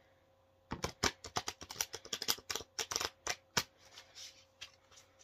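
A deck of Kipper fortune-telling cards being shuffled by hand. A dense run of crisp card snaps starts about a second in and lasts some three seconds, then a few scattered ones follow.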